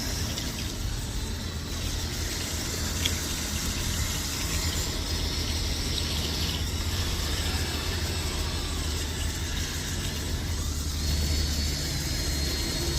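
Small electric motors of RC construction vehicles running over a steady low rumble, with a thin high whine that comes in near the end.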